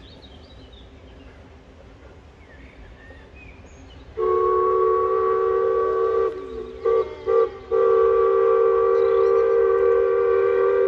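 Steam locomotive's whistle, several notes sounding together as one chord, starting suddenly about four seconds in with a long blast. About two seconds later it breaks into two short toots, then sounds another long blast that lasts until near the end.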